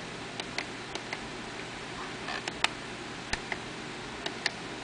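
Menu buttons on an FrSky Taranis X9D Plus radio transmitter clicking as they are pressed, paging through its screens: about ten short, irregular clicks over a steady hiss, the loudest about two and a half seconds in.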